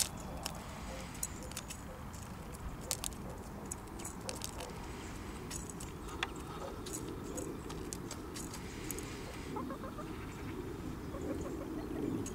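Hens pecking mixed seed from a plastic tub: irregular sharp clicks of beaks striking grain and the tub, over steady low background noise.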